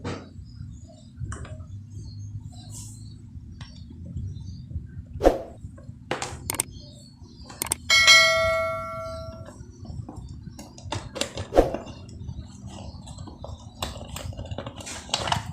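Scattered clicks and knocks over a low steady hum, with one ringing metallic strike about eight seconds in that fades out over a second or so.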